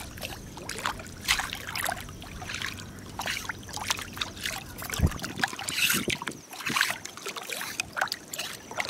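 Shallow seawater sloshing and splashing around wading rubber boots and long tongs working among seaweed-covered rocks, with many short irregular splashes and clicks.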